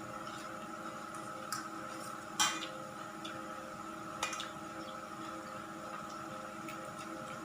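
Three short clinks of a utensil against a dish, the loudest a little past two seconds in, over a steady electrical hum.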